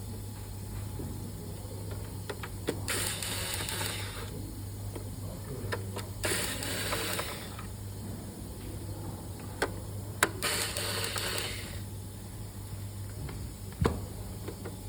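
Screws being turned out of a laptop's plastic casing with a hand screwdriver: three scratchy grinding stretches of about a second each, with a few sharp clicks as parts and tools are handled. A steady low hum runs underneath.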